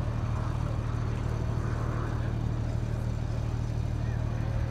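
Consolidated PBY Catalina's twin radial engines droning steadily as it flies low past the crowd, with faint crowd chatter over the top.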